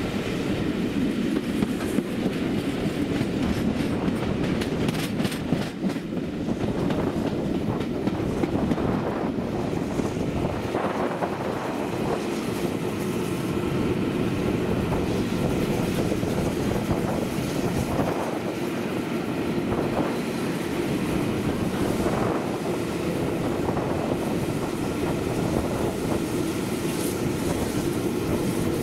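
Steam-hauled passenger train heard from a carriage window: a steady rumble of the coaches' wheels on the track, with a run of clacks a few seconds in as it crosses the points and occasional single clacks over rail joints after that.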